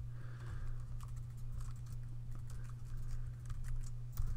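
Computer keyboard typing: quick, irregular key clicks over a steady low hum.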